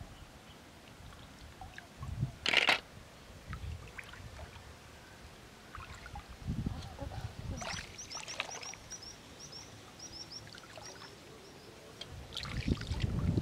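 Hands working through shallow river water while gathering snails: soft sloshing and dripping, with one short loud noise about two and a half seconds in. A bird chirps a quick series of short high notes from about eight to eleven seconds in, and a low rumble rises near the end.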